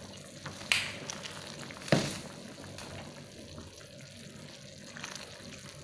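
A pot of soup with vegetables and seafood simmering, its broth bubbling, while a wooden spoon stirs it. There are two sharp knocks of the spoon against the steel pot, the louder about two seconds in.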